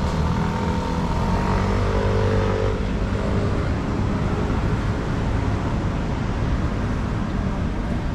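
Road traffic: a motor vehicle's engine running close by for the first few seconds, over a steady rumble of traffic.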